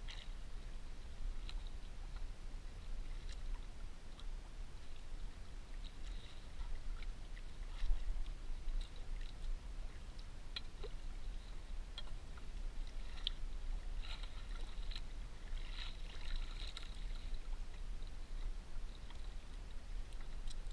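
Low steady rumble of wind and sea around a small outrigger fishing boat, with scattered small clicks and scrapes from pliers and gloved hands working a hooked pufferfish free on the wooden deck; the ticking comes thicker and faster about two-thirds through.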